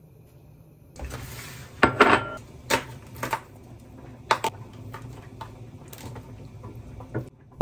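A metal spoon clinking and scraping against a plastic meat tray and a ceramic bowl as raw beef cubes are scooped across, a run of sharp irregular clicks starting about a second in, loudest soon after.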